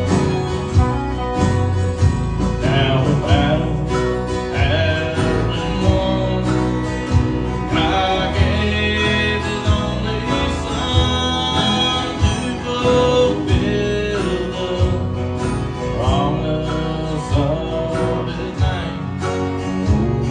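Country-style music with guitar, a steady beat and a bending melodic lead line.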